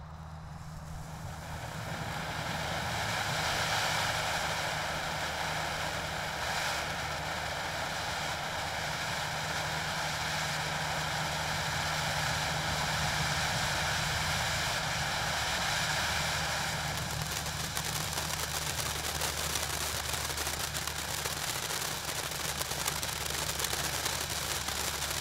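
Spider Mania ground fountain firework spraying sparks with a steady hiss that builds over the first couple of seconds. About two-thirds of the way through, the hiss turns to dense crackling.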